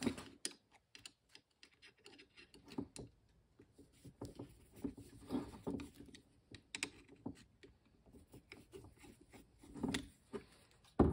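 A screwdriver turning out the screws on a snowmobile carburetor, opening it to check the float bowl: faint, irregular clicks, taps and scrapes of metal on metal as the carb body is handled.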